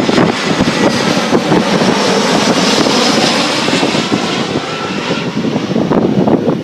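Airliner's engines passing, a rising and then fading high hiss, under heavy wind buffeting the microphone.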